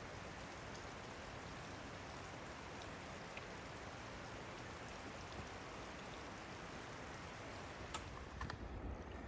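Steady, even rush of running water, like a creek or cascade in the gorge, with a few faint ticks and some low uneven buffets near the end.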